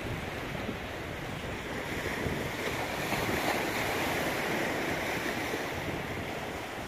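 Choppy sea waves washing against a rocky shore, with wind buffeting the microphone. The surf swells louder through the middle and eases again near the end.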